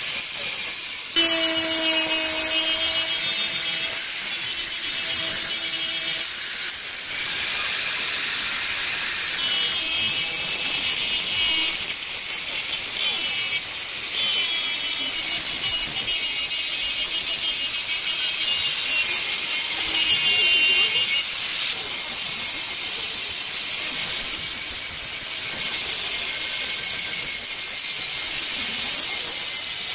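Electric angle grinder running with a polishing pad pressed against the edge of a granite slab, a high-pitched grinding hiss and whine from pad on stone. The tone keeps changing every few seconds as the pad is worked along the edge.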